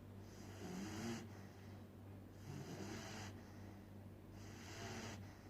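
A puppy snoring in its sleep: three breathy snores, each about a second long, coming about every two seconds.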